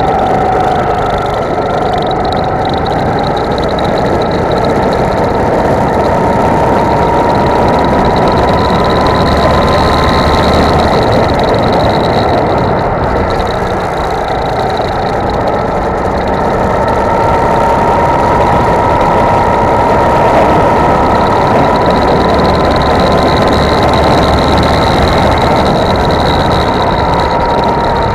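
Go-kart engine running flat out, heard from on board. Its pitch climbs slowly as the kart gains speed, drops off around halfway and again near the end as it slows, then climbs once more.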